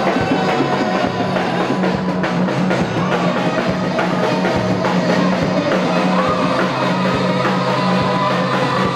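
Band music with a steady drum-kit beat over a sustained low bass line.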